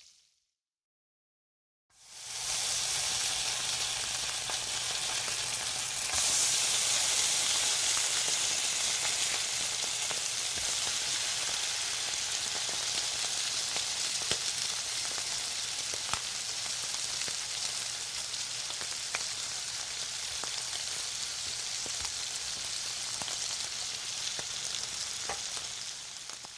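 Food frying in a hot pan: a steady sizzle with scattered sharp pops. It fades in after about two seconds of silence, gets a little louder a few seconds later, and dies away near the end.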